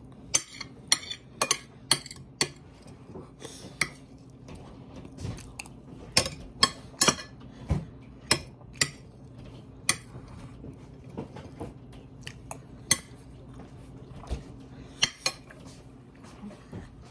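Cutlery tapping and clinking against a dinner plate in quick, irregular sharp taps, fewer after about ten seconds.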